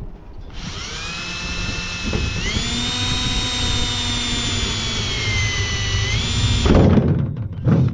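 Cordless drill boring a hole. Its motor whine climbs as it spins up, holds a steady pitch that sags a little and rises again, then stops about seven seconds in, followed by one short burst near the end.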